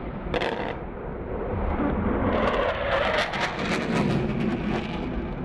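Military fighter jet's engine roar, swelling to its loudest about midway and then easing slightly.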